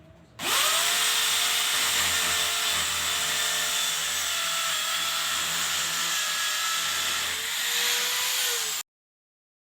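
Electric drill spinning up and running steadily, its pitch dipping briefly near the end, then cutting off suddenly.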